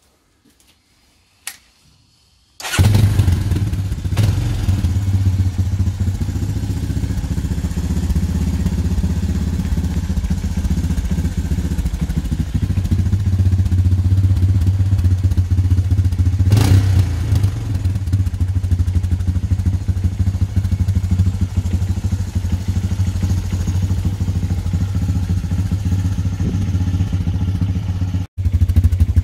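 Honda TRX 250 EX quad's air-cooled single-cylinder four-stroke engine starting up about three seconds in after a click, then idling steadily.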